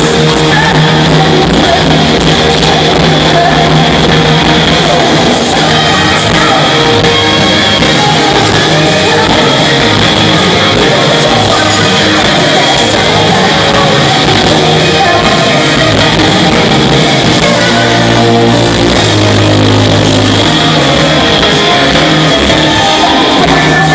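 Live rock band playing loudly, with electric guitars, drums and singing, heard from within the standing crowd.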